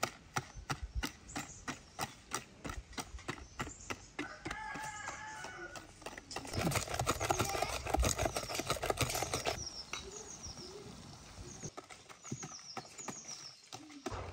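Wire whisk beating a yellow egg mixture in a plastic bowl, its wires clicking against the bowl about three or four times a second. For a few seconds in the middle the strokes come faster and louder, then they ease off.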